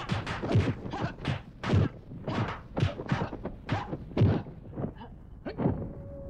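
Rapid series of kung fu film fight sound effects: a dozen or so sharp punch-and-kick whacks, two to three a second, stopping shortly before the end.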